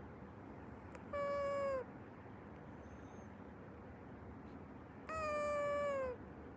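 A sleeping, snoring pet giving two drawn-out, steady-pitched whining cries, the second longer, each dropping in pitch as it ends.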